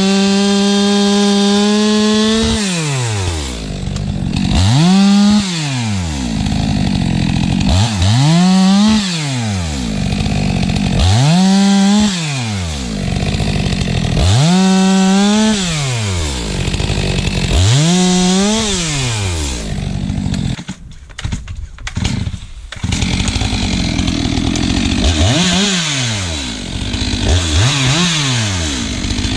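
Stihl MS 462 two-stroke chainsaw held at full revs for the first couple of seconds. After that the throttle is opened and let go again and again, the engine rising to full revs and falling back about every three to four seconds, with a short lull about two-thirds of the way through, as logs are bucked with a freshly sharpened chain.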